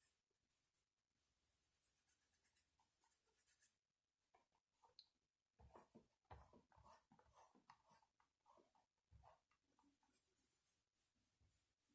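Faint scratching and rubbing strokes of craft work on a foam squishy, like chalk being scraped or rubbed on, with a few light handling knocks, busiest in the middle.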